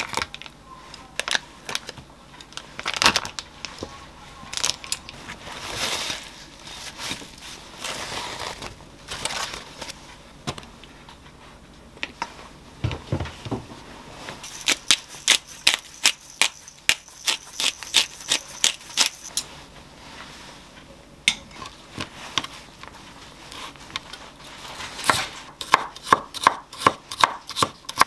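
Kitchen prep sounds: scattered rustling and light clatter of paper towel and raw beef being handled, then a run of quick, even clicks for about five seconds as the beef is seasoned with pepper and salt. Near the end, a knife chopping onion on a wooden cutting board in a fast, even rhythm.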